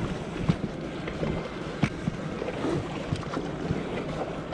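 Water sloshing and wind on the microphone from a small paddled boat on the sea, with scattered light knocks.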